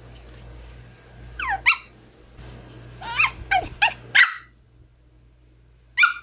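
A Pomeranian barking angrily in short, high yaps. Two barks come about a second and a half in, a quick run of four follows, and one more bark lands near the end.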